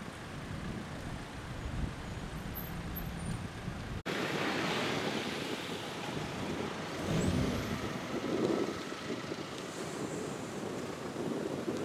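Road traffic from a queue of slow-moving cars in a jam, engines running steadily. About four seconds in the sound drops out for an instant and comes back with more hiss, wind on the microphone mixed in.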